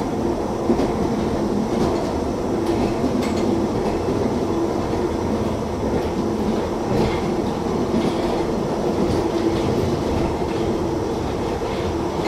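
London Underground 1972 Stock tube train running steadily, with a constant hum and occasional sharp clicks of the wheels over rail joints.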